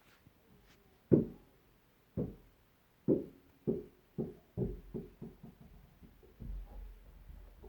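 A run of dull, irregular knocks, about ten of them, the loudest about a second in. They come closer together in the middle and turn into a lower rumbling thump near the end.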